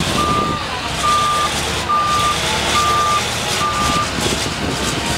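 Backup alarm beeping five times, even single-tone beeps a little under a second apart that stop about four seconds in, over the steady low running of a loaded Cat 793D mining haul truck's V16 diesel as it backs up.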